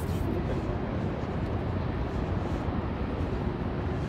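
Steady city street ambience: an even, low rumble of traffic.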